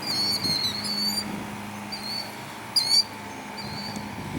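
Killdeer calling: shrill, high notes, a quick run of several in the first second, then single calls about once a second, the loudest a little under three seconds in.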